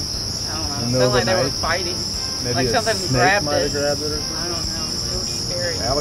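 Two people's voices in short bursts of talk, about a second in and again around the middle, over a steady high-pitched hum that never changes.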